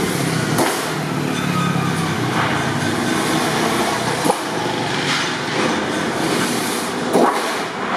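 Street traffic noise: a steady din of motorbikes and other vehicles, with a few sharp knocks, the clearest about four and seven seconds in.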